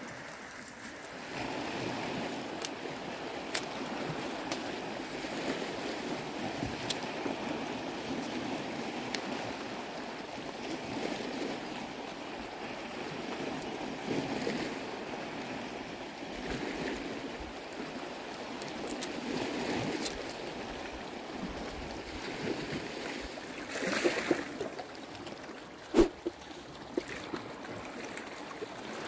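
Sea waves washing steadily against a rocky shore, with some wind. A few sharp clicks and knocks near the end.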